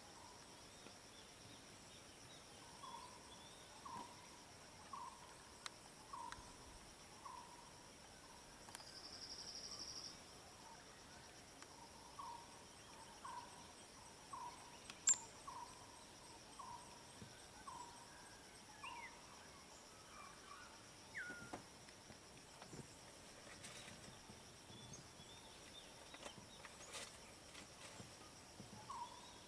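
Faint wild ambience: a bird repeats a short call note about once a second, in runs, over a steady high drone of insects. A brief buzzy trill comes about nine seconds in.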